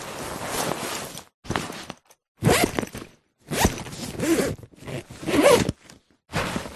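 Backpack zipper being pulled open and shut in a run of quick strokes, each a rasping zip, with brief silent gaps between them.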